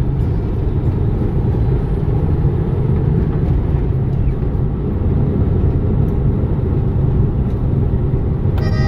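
Steady engine and road rumble heard from inside a truck's cab while driving. Music with a melody comes in right at the end.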